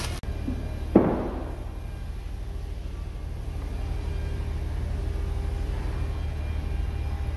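A single hard knock about a second in, its ring dying away within half a second, over a steady low rumble.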